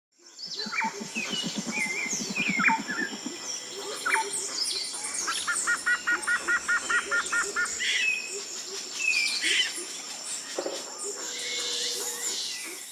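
Forest ambience of many birds calling: scattered chirps and whistles, with a quick run of evenly repeated notes, about six a second, in the middle, over a steady high-pitched hum. It fades in at the start and fades out near the end.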